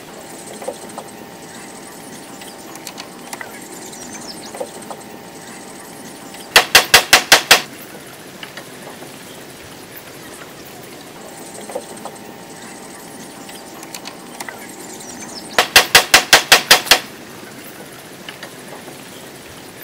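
Two quick runs of sharp hammer blows on the wooden frame, about seven strikes a second: about six strikes a third of the way in and about nine later on, over a steady outdoor background with faint scattered taps.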